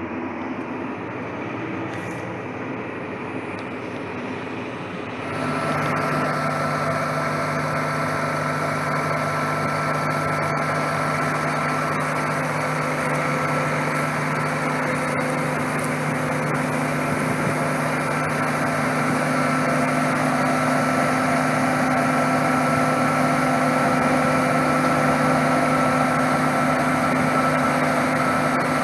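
John Deere combine harvester and tractor running steadily while the combine unloads grain into a trailer: a constant machine drone with a steady whine over it. For the first five seconds it is heard muffled from inside a vehicle cab, then it cuts to the open and is louder and clearer.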